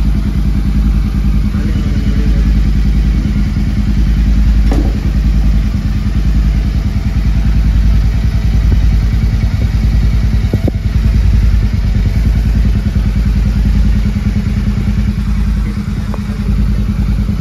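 Motorcycle engine idling steadily with an even, deep pulsing exhaust note, and two short clanks about five and eleven seconds in.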